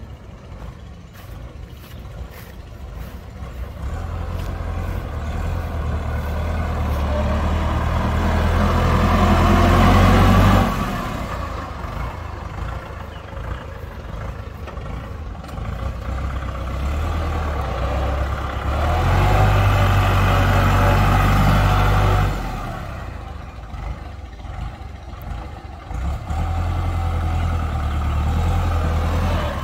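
Kubota L5018 tractor's four-cylinder diesel engine running as the tractor is driven about, growing louder and fading three times as it passes near and moves away.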